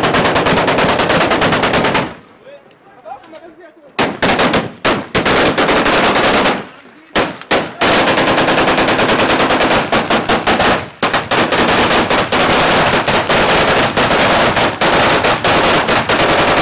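Kalashnikov-pattern assault rifles firing on full automatic at close range, in long rapid bursts. The firing breaks off twice for a second or two, about two seconds in and again about seven seconds in.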